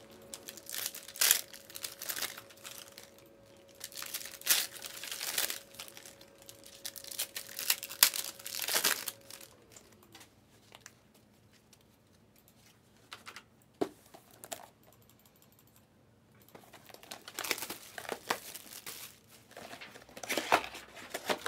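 Plastic wrapping crinkling and tearing in irregular bursts as trading card boxes and packs are opened by hand, with a quieter lull partway through.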